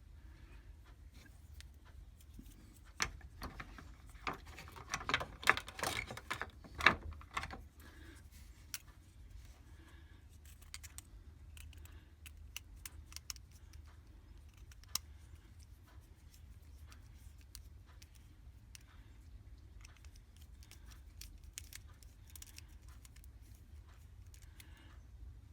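Small clicks, taps and light metallic rattles of hand tools and wire being handled during electrical wiring work, in a dense cluster a few seconds in, then only scattered faint ticks.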